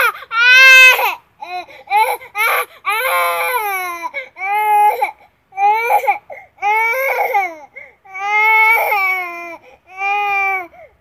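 Baby crying: about eight cries in a row, each roughly a second long, rising then falling in pitch, with short breaks for breath between them.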